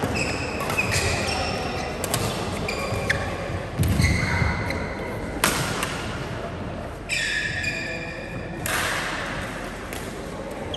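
Badminton rackets hitting the shuttlecock several times, the sharp hits ringing in a large hall, mixed with high-pitched squeaks of court shoes on the floor, a long squeak about seven seconds in.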